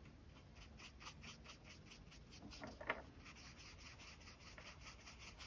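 Faint scratching of a flat paintbrush dabbing and stroking wet gouache on paper, several quick strokes a second, with one brief louder rub just before three seconds in.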